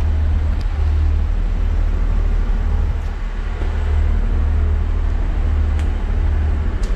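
Steady low rumble under a wash of background noise, like a railway station's ambience, with a few faint clicks.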